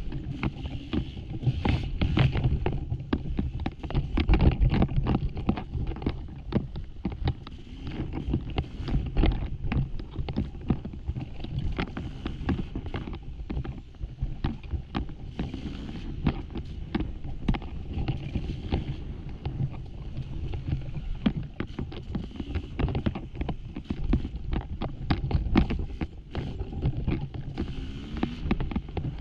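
Dirt bike racing over a loose, rocky trail: the engine running with wind on the microphone and frequent knocks and clatters from rocks and the bike.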